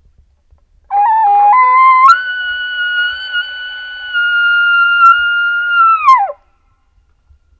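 Bull elk bugling: a whistle that climbs in two steps over about a second, holds a high, steady note for about four seconds, then drops sharply and cuts off.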